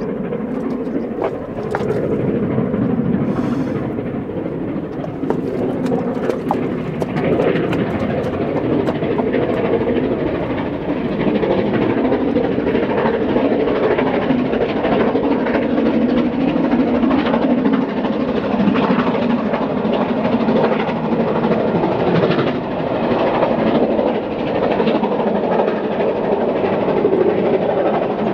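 Mainline steam locomotive working a passenger train, its chuffing exhaust heard over the clickety-clack and rumble of the coaches on the rails.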